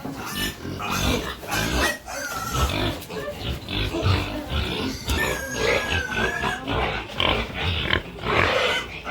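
Pigs grunting and squealing over one another in a dense, irregular stream of short calls, with one longer held squeal about five seconds in.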